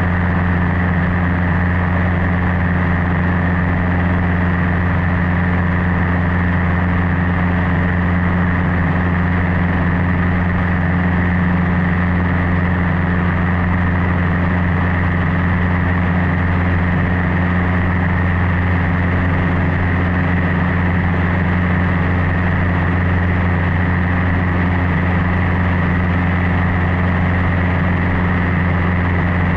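Cessna 150's four-cylinder Continental O-200 engine and propeller droning steadily in flight, heard from inside the cabin, with a constant low hum and no change in power.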